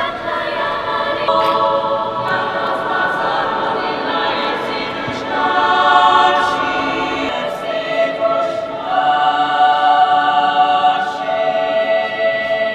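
A choir singing in a church: slow, sustained chords, each held for a few seconds before moving to the next.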